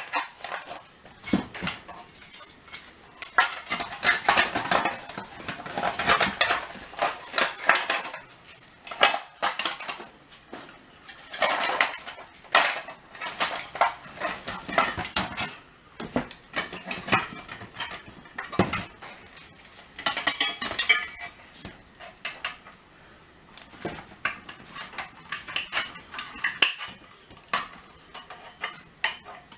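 Sheet-metal parts of a recessed light can clinking, rattling and clattering against each other and the bench as they are handled, in irregular runs of sharp metallic knocks.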